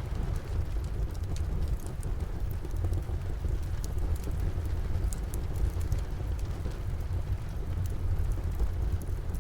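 Steady rain with a low rumble under it, and a wood fire in a fireplace crackling, its small sharp pops scattered irregularly throughout.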